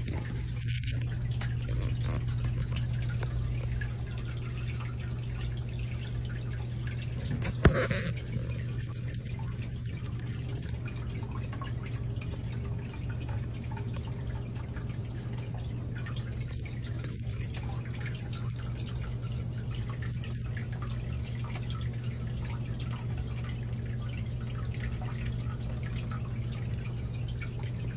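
Water dripping and trickling over a steady low hum, with one sharp click about eight seconds in.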